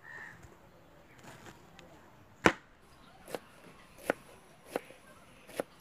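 Large kitchen knife chopping cabbage on a wooden cutting board: five sharp knocks about two-thirds of a second apart, starting about two and a half seconds in, the first the loudest.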